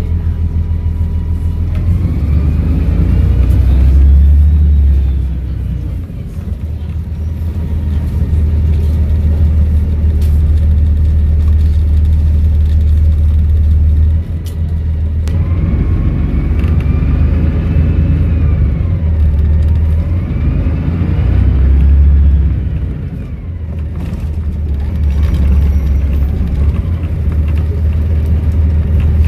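Volvo B7RLE bus with Voith automatic gearbox accelerating twice: a deep engine drone with a whistling turbo that climbs in pitch as it pulls, then falls away as the driver eases off, about six seconds in and again a little before the end.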